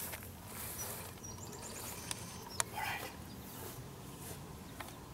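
Quiet outdoor ambience with faint rustling, a few soft clicks and one sharp click about halfway through, and a brief run of faint high chirps.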